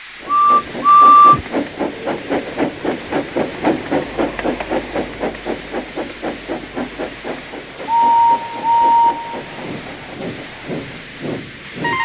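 Steam locomotive whistle and exhaust: two short toots, then a steady run of chuffs at about four a second, with two lower-pitched toots about eight seconds in.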